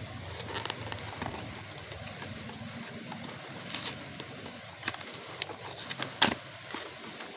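Cardboard and paper ink-cartridge packaging being handled by hand: scattered rustles and light clicks, the sharpest about six seconds in.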